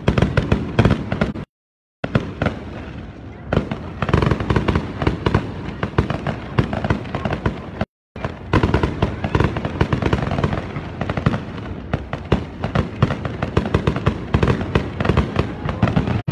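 Aerial fireworks display: a dense, rapid run of bangs and crackles from shells and crackling stars bursting overhead. The sound cuts out completely twice, briefly, about a second and a half in and again about eight seconds in.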